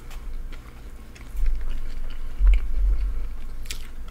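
Close-miked biting and chewing of a McDonald's fish sandwich, with a deep low rumble through the middle and a few soft clicks.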